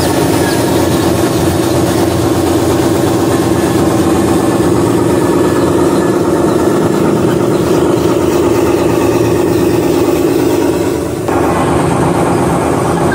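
Simulated diesel truck engine sound of a radio-controlled Mitsubishi Fuso dump truck model, a steady running drone. It dips briefly and changes tone abruptly about eleven seconds in.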